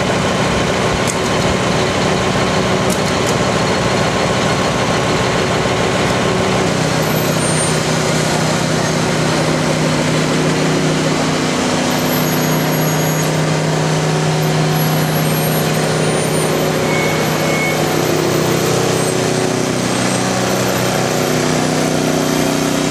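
A truck engine running steadily under a tableau float, its low hum drifting slowly in pitch.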